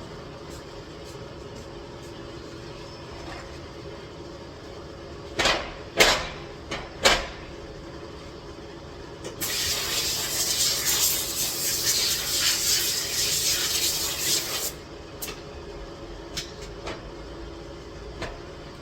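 Three short hissing blasts, then a steady hiss of air or spray lasting about five seconds, over a constant low hum.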